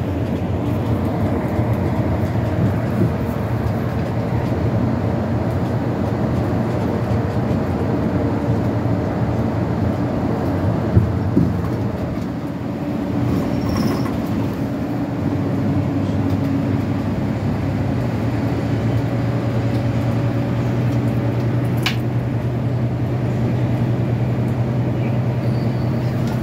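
Inside a moving city bus: the engine and road noise run as a steady drone, with a low hum that grows stronger a little past the middle. A couple of sharp knocks come near the middle.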